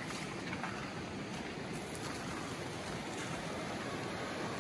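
Creek water rushing steadily.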